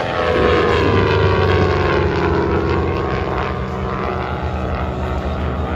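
Beechcraft T-34 Mentor propeller trainer flying past, its engine drone falling in pitch over the first few seconds as it goes by.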